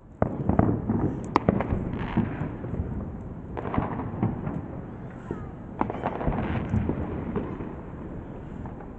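Loud fireworks going off: sharp bangs and crackling in quick flurries, about a second in, around four seconds and around six seconds. A low rolling echo hangs under them and thins out toward the end.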